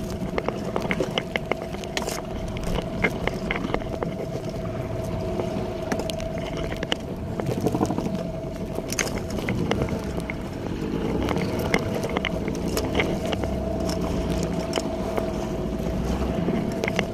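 Fishing boat's engine running steadily, with frequent sharp clicks and knocks over the hum.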